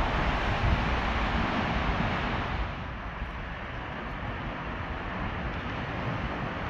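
Steady rush of road traffic under a road bridge, with wind buffeting the microphone. The noise drops a step about two and a half seconds in.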